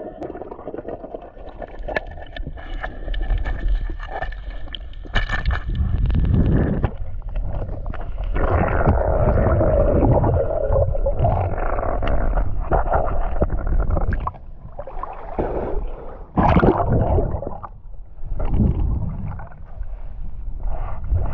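Underwater sound through a spearfisher's camera: water rushing and gurgling over the housing as the diver moves, with a few sharp knocks.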